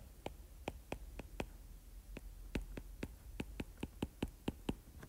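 Stylus tip tapping on a tablet screen while handwriting: a run of sharp, irregular ticks, about four a second.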